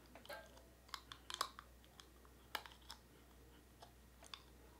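Faint, irregular clicks and snaps of clear plastic orthodontic aligner trays being pressed and seated onto the teeth by hand.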